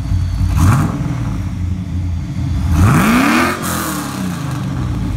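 Car engine idling, blipped briefly about half a second in, then revved hard around three seconds in and let fall back to idle, with a rush of hiss during the big rev that cuts off sharply.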